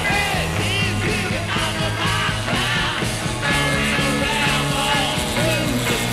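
Rock music playing as a soundtrack.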